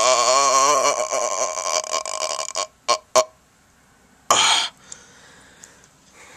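A man holding one long, very low, wavering sung note in a voice made unusually deep by just having woken up; the note fades out about two and a half seconds in. Two short clicks follow, then a brief loud burst of noise about four seconds in.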